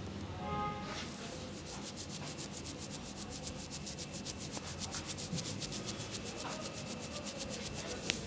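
Fingers rubbing briskly through wet hair against the scalp in a head massage, a rhythmic scratchy rubbing of about five or six strokes a second that starts about a second and a half in. A single sharp click near the end.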